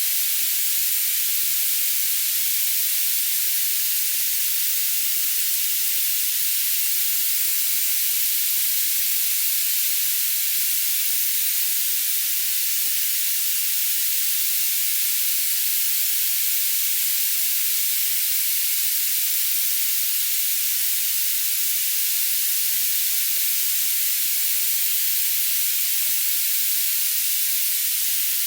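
Steady, unchanging high-pitched hiss: white noise filtered to keep only its upper range, with no low rumble, played as a tinnitus masking sound.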